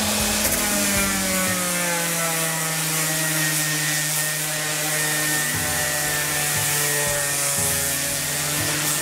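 Electric orbital sander running against the face of a laminated wooden keel knee, lightly sanding off the marks left by the planer. Its steady motor hum dips slightly in pitch in the first couple of seconds as it settles, and a deeper rumble joins twice in the second half.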